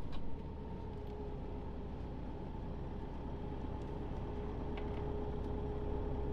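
Motorhome engine and road noise heard from inside the cab as it drives slowly away: a steady low rumble with a faint steady hum, growing a little louder toward the end.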